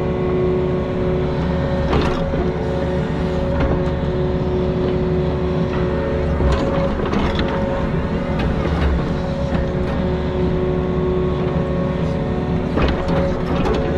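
Mini excavator's diesel engine running steadily with a constant hydraulic whine, and a few metallic knocks from the machine working.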